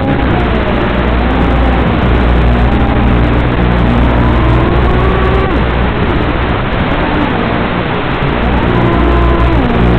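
FPV racing quadcopter's brushless motors whining under a steady hiss, the pitch gliding up and down as the throttle changes through turns.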